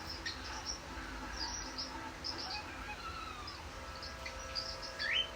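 Cockatiel giving short high chirps and soft squeaky calls, with a quick rising squeak near the end: it is imitating a Pacific parrotlet's 'dei dei' call and snoring sound.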